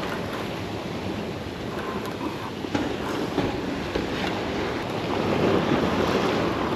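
Ocean surf washing and breaking over the rocks of a seawall, a steady rush that grows a little louder near the end.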